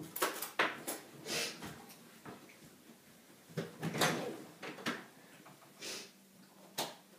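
A series of short knocks, clatters and rustles of things being handled in a small room, several in the first second, a denser cluster about four seconds in and single knocks near the end.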